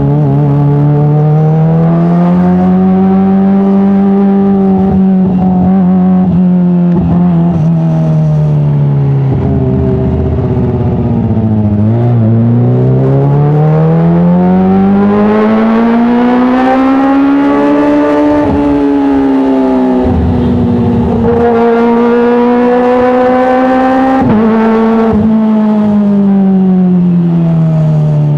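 Kawasaki ZX-25R's 249 cc inline-four running through an Arrow Works titanium full-system exhaust. Its pitch climbs and falls in long, smooth sweeps, dropping back sharply several times, with a few short pops.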